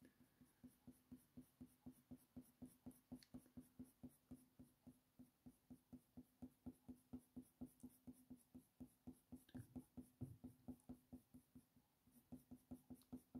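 Faint, quick scratching of a Faber-Castell Polychromos coloured pencil (beige red) stroking over hot-press watercolour paper, about four short strokes a second, with a brief pause near the end.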